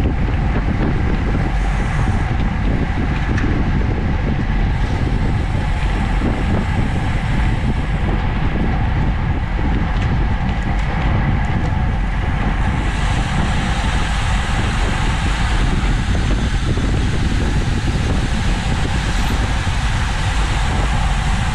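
Steady rush of wind buffeting the microphone of a bicycle-mounted camera at racing speed, about 30 mph, mixed with road and tyre hiss. The hiss turns brighter a little past halfway.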